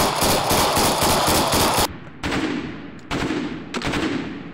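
Belt-fed machine gun firing one long sustained burst of rapid automatic fire, cutting off after about two seconds. Three separate loud shots follow, each with an echoing tail.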